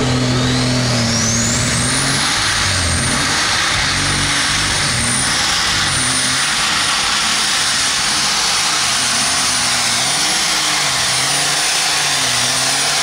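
Light super stock pulling tractor's turbocharged engine running hard under load while pulling the sled. A high turbo whine rises over the first two seconds and then holds, over an engine note whose revs waver.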